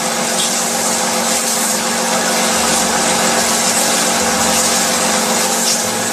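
A small motor or pump running steadily: a constant hum with a hiss over it.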